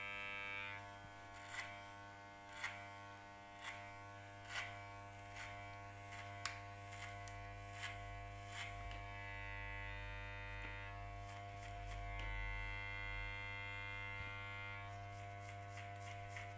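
Electric hair clipper with a guard comb running with a steady buzz while it cuts a fade, turning brighter and higher in two stretches in the second half. Sharp ticks sound about once a second through the first half.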